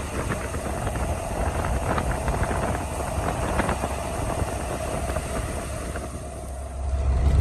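Goods truck driving at highway speed, a steady road and engine rumble with wind buffeting the microphone at the open cab window and light rattling; the low rumble swells near the end.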